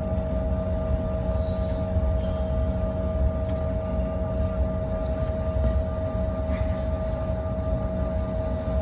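Cabin noise inside a Bombardier CRJ-700 regional jet taxiing on its GE CF34 turbofans at low power. A steady low rumble runs under a steady mid-pitched whine, with a fainter higher whine above it.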